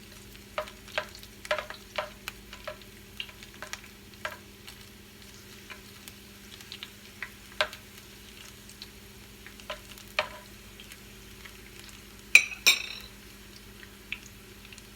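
Oil with garlic cloves and rue leaves sizzling in a pot on the stove, with scattered pops and crackles over a steady low hum. Two sharper clicks stand out near the end.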